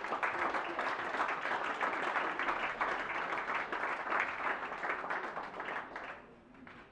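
Audience applauding, a dense patter of many hands clapping that dies away about six seconds in.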